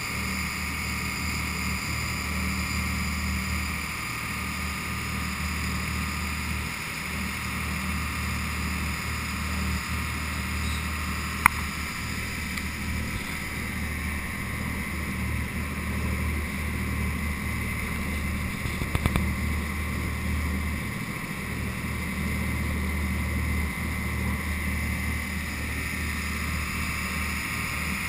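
A motor boat's engine running steadily underway, a constant low hum, with water rushing along the hull. A single sharp click about halfway through and a brief clatter a few seconds later.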